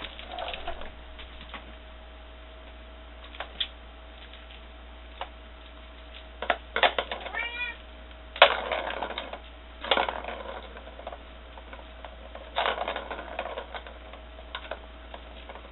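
Kittens batting the ball around a plastic circular track toy: several bursts of rattling clatter, with a short meow about halfway through.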